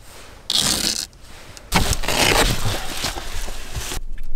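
Fabric rustling and scraping as a blackout cover is pulled off a car window. There is a short burst about half a second in, then a longer rustle from about two seconds in that stops suddenly near the end.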